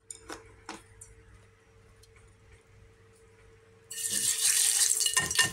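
Two light clicks, then about four seconds in a fresh cá chốt trâu catfish goes into hot oil in a frying pan and the oil starts sizzling loudly.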